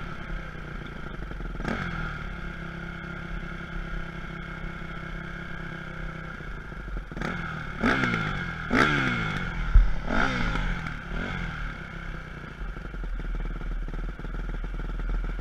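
Dirt bike engine idling, with quick throttle blips that send the revs up and let them fall back to idle: once about two seconds in, then five in a row in the middle.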